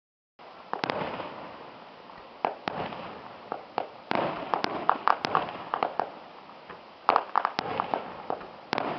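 Fireworks display: aerial shells bursting in quick clusters of sharp cracks and pops every second or two, over a running crackle.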